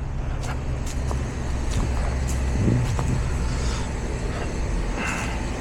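Newly installed R454 heat pump's outdoor unit running with a steady low hum, with a few light clicks over it.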